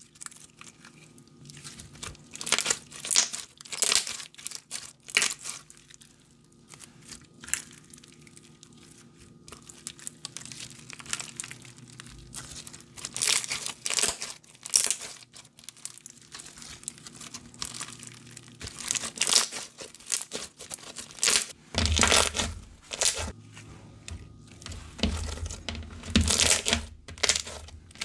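Clear crunchy bead slime squeezed, folded and stretched in the hands, giving irregular bursts of crackling and popping from the beads. In the last few seconds low thumps join the crackle.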